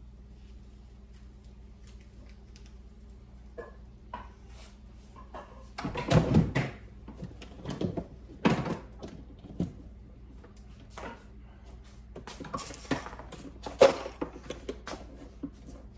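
Clatter of someone off to the side fetching and handling an extension cord: scattered knocks, thuds and rattles, sparse at first and busier from about six seconds in, over a low steady hum.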